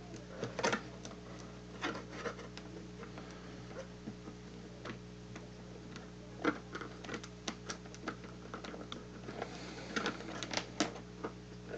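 Scattered small clicks and taps of hands handling antenna wire and a nut on a metal post of a plastic dipole centre insulator, as the wire is wrapped around the post and tightened down. A steady low hum runs underneath.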